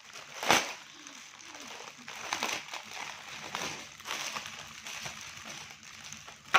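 Mosquito net packaging rustling and crinkling as it is handled and opened by hand, with a loud crackle about half a second in and irregular smaller crackles after. A sharp click comes at the very end.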